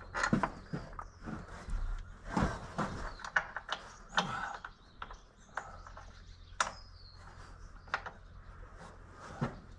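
Irregular metallic clicks, knocks and clanks of hand tools and parts being worked by hand inside a tractor's engine bay.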